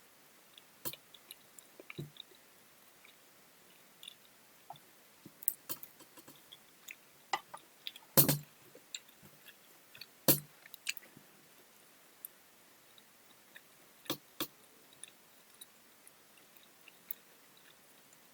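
A person chewing food, with scattered small clicks and a few louder sharp knocks, the loudest two about eight and ten seconds in.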